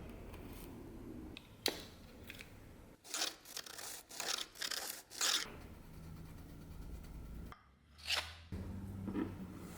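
Short, sharp scraping strokes of hand work on a knife: a single stroke, then a quick run of several close together, then one more near the end.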